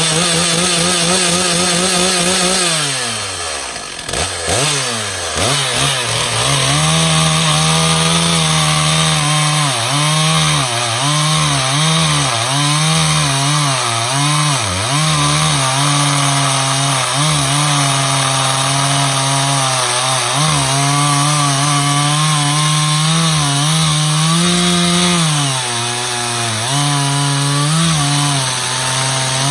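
Stihl chainsaw running at high revs. Its pitch drops about three seconds in, then it works under load through hickory, the engine note repeatedly sagging and recovering as the chain cuts.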